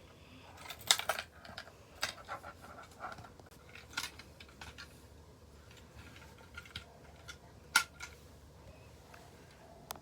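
Scattered sharp clicks and light rattles, like small objects being handled, with no alarm sounding. The loudest clicks come about a second in and again late on.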